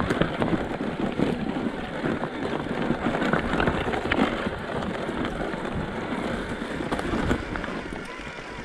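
Bicycle tyres rolling over a rough, stony trail, with frequent small knocks and rattles, and wind buffeting the microphone. The noise eases off near the end.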